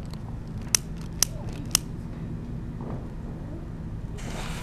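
Three sharp clicks about half a second apart over a steady low hum, with a faint hiss setting in near the end.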